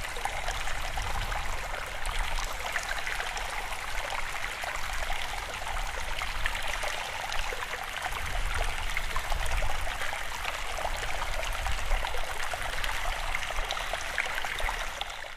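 Steady running water, like a flowing stream, with a low rumble underneath, dropping off at the very end.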